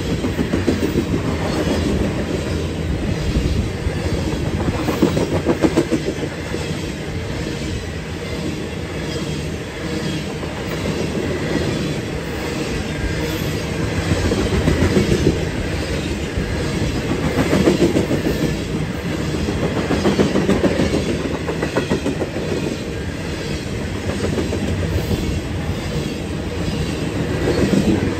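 Steel gondola cars of a unit coal train rolling past at track side: a continuous rumble of wheels on rail with rapid clickety-clack as the wheelsets cross the joints, swelling louder every few seconds as each truck goes by.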